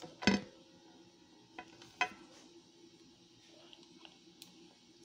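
Light clicks and knocks of a hard plastic toy doll being handled: one louder knock near the start, two softer ones about two seconds in, then a few faint ticks.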